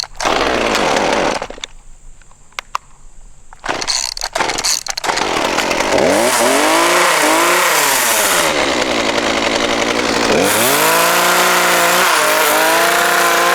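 Gas chainsaw cutting into a pumpkin. A short loud burst at the start, a lull with a few clicks, then from about four seconds in the saw runs steadily, its engine pitch rising and falling twice.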